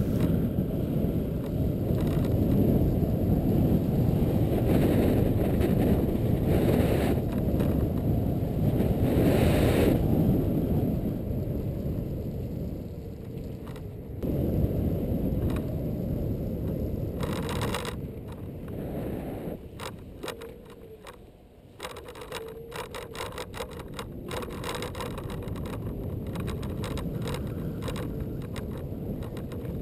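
Xiaomi M365 electric scooter riding along a paved path: a steady low rumble of tyres on the path and wind, with a run of rattling clicks in the second half.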